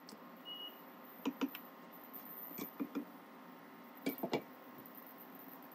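Plastic spatula lightly knocking against a nonstick frying pan while stirring, a few short clicks, then a glass lid set onto the pan with a couple of clinks about four seconds in.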